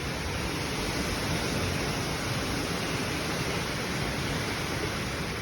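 Storm wind and heavy rain of a straight-line wind storm: a steady rushing noise that neither rises nor falls.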